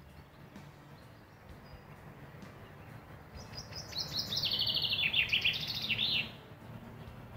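A songbird sings one phrase lasting about three seconds, a run of rapid trills that steps down in pitch and ends in a short flourish, starting a few seconds in.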